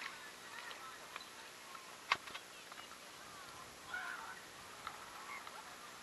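Faint outdoor crowd ambience: distant voices and short shouts of people around the creek, with one sharp knock about two seconds in.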